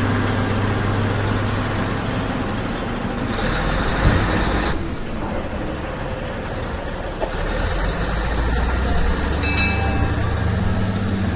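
A truck engine running steadily at a low idle, with a brief rush of hiss and a knock around four seconds in, and a short ringing chime near the end.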